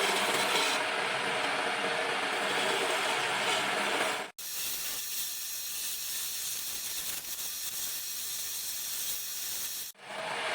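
Wood lathe running, with a cutting tool shaving the spinning wood in a steady hiss over a faint motor hum. The sound cuts out for an instant twice, about four seconds in and near the end, and the middle part is thinner and more hissy.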